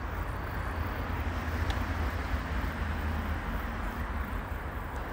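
Wind buffeting the microphone: a steady, uneven low rumble under a faint hiss.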